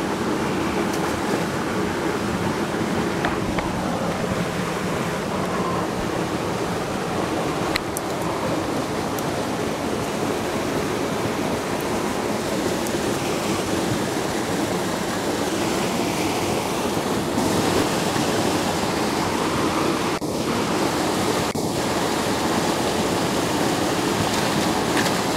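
Steady rush of water pouring through a spillway, an even unbroken noise.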